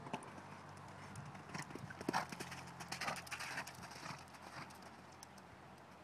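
Hoofbeats of a Connemara mare moving on the arena's gravelly footing after a jump, an irregular run of thuds that grows fainter near the end as she moves away.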